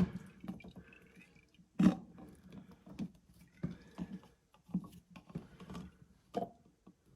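Scattered knocks and scrapes from handling cups and a disconnected dishwasher water hose as water is caught from it; the loudest knock comes about two seconds in.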